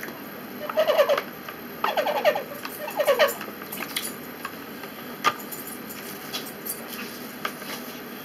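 Three short whining cries from a small pet, about a second apart, followed by a few sharp clicks of cutlery on a dish.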